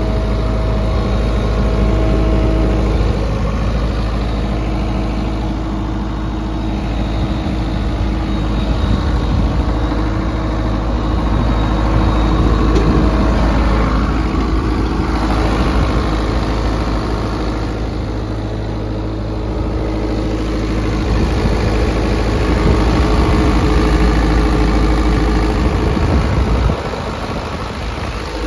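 Isuzu diesel engine of a John Deere 135C excavator idling steadily, heard up close at the engine compartment.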